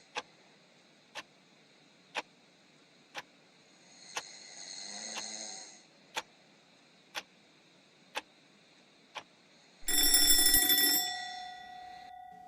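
Cartoon sound effects: a clock ticking about once a second, with one faint snore in the middle. About ten seconds in, an alarm clock starts ringing loudly, then fades to a lingering tone.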